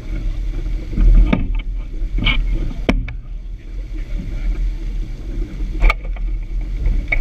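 Water rushing and splashing along the hull of a sailboat under way, over a low, steady rumble, with a few sharp knocks.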